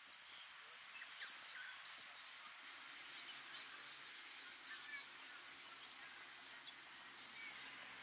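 Faint outdoor ambience: a steady hiss with scattered short bird chirps and calls. A faint low hum comes in about two to three seconds in.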